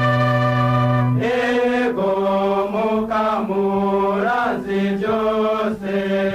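Church choir singing a hymn, several voices moving from note to note together over held low notes.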